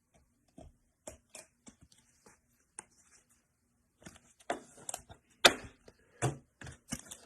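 Trading-card pack being handled and opened: the wrapper crinkles and tears, with scattered small clicks and crackles, and louder bursts of rustling over the last few seconds.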